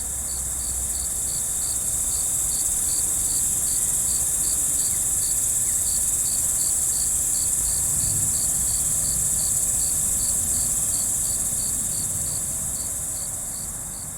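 Insect chorus: a steady high-pitched shrill with a separate chirp pulsing about five times a second. It swells in and fades out near the end.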